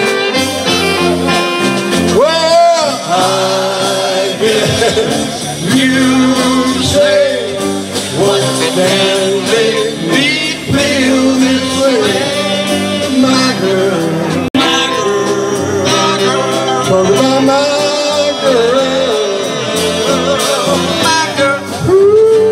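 Live band performing a song, a man singing lead into a microphone over guitars and other instruments. The sound cuts out for an instant about two thirds of the way through.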